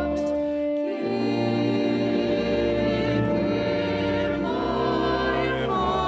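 Slow, classical-style carol music: held chords beneath a wavering, vibrato melody line, the chords changing about a second in and again around four and a half seconds.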